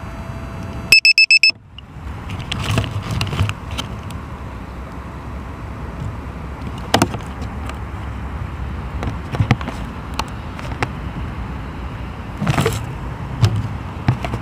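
A quick run of four short, high electronic beeps about a second in, then a steady low rumble of wind and handling noise on the small onboard camera's microphone, with a few sharp knocks.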